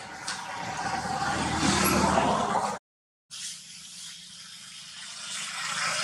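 Traffic noise: a passing vehicle swells to a peak, the sound drops out completely for a moment about three seconds in, then a second vehicle swells up near the end.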